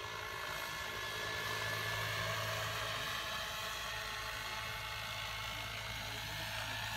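Vario Schweizer 300C radio-controlled scale model helicopter in flight: a steady whine from its motor and rotor drive over a low hum.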